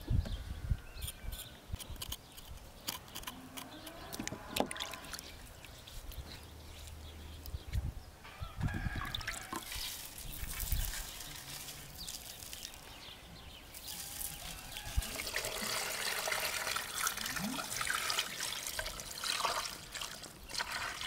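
Coarse salt scattered by hand over meat and vegetables in a large metal pot, then water poured from a jug into the pot, splashing and trickling for several seconds in the second half.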